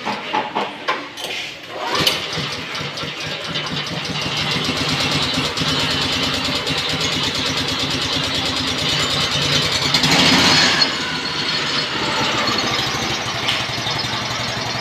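Honda GX270 single-cylinder four-stroke engine on a walk-behind concrete cutter, pull-started with its recoil cord and catching about two seconds in, then running steadily. Around ten seconds in it revs up briefly and louder, then drops back to a steady run.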